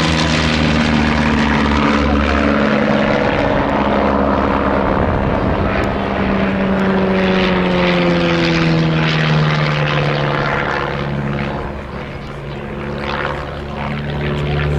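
A de Havilland Chipmunk light trainer flying a display pass, its single piston engine and propeller droning steadily. The engine note falls in a long glide through the middle as the aircraft passes by, and the sound briefly grows softer near the end.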